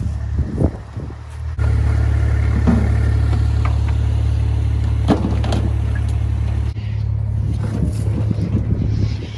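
Engine of a motor vehicle running steadily with a deep low hum, cutting in abruptly about one and a half seconds in, with a few light knocks over it.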